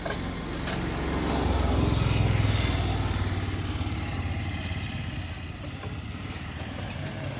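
A motor vehicle's engine passing close by: a low, steady hum that swells to its loudest about two seconds in and then slowly fades. A few light clicks sound over it.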